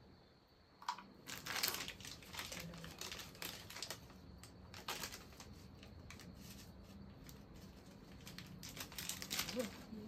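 Irregular crinkling and rustling with small clicks, from hands handling food and wrappings while cooking.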